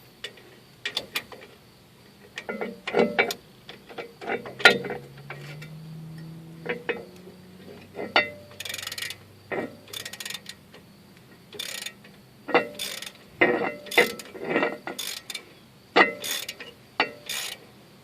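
Hand ratchet wrench clicking in short irregular runs, with light metal clatter: turning a nut on a bolt under the truck's rear end.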